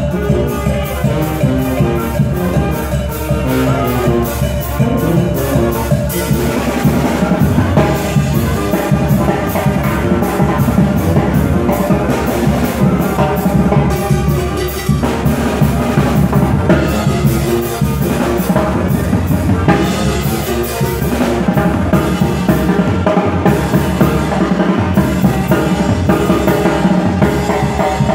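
Live brass band dance music: a sousaphone carrying the bass line under the other brass, over a steady drumbeat.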